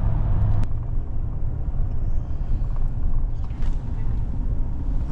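Steady road and engine rumble of a moving vehicle heard from inside the cabin, with a single sharp click about half a second in.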